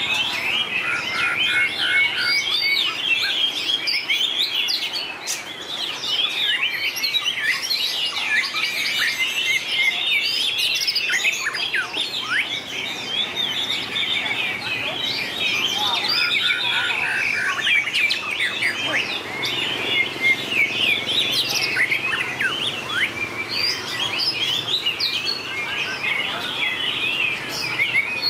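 White-rumped shama in competitive song, singing without a break in long, varied runs of quick whistles and chirps that slide up and down in pitch.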